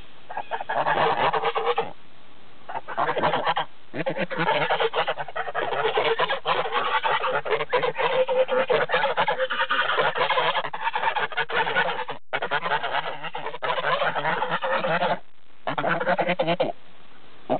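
Domestic white geese honking in long, rapid runs, broken by a few short pauses.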